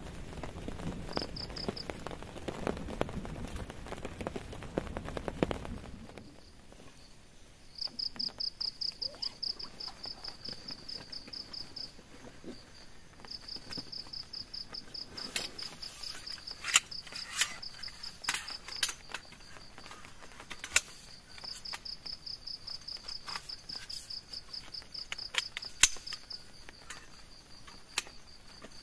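Heavy rain with a low rumble for the first six seconds, cutting off abruptly. After it, an insect trills in long runs of rapid pulses at one high steady pitch, with scattered sharp clicks or drips that are the loudest sounds.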